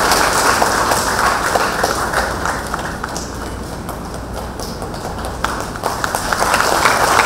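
A congregation applauding: dense clapping that eases off midway and swells again about five and a half seconds in.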